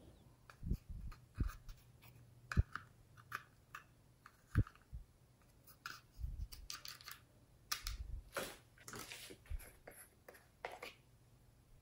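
Small plastic spatula scraping and chipping pressed eyeshadow powder out of a compact palette, with irregular light clicks and taps from the spatula and palette case and a few dull knocks. Longer scratchy scrapes come about three-quarters of the way through.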